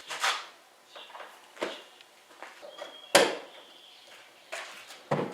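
Ford Mustang trunk lid being shut and opened again, four separate knocks and latch clacks, the loudest about three seconds in, as the newly fitted trunk latch is tested.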